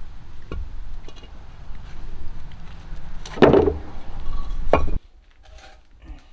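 Scattered knocks and clinks of hard objects being handled, over a low rumble, with one louder thump about three and a half seconds in. The sound cuts off abruptly about five seconds in, leaving only faint clicks.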